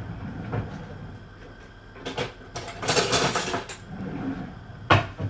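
Kitchen handling sounds: a light knock about two seconds in, a rustle or scrape lasting about a second, and a sharp clack near the end.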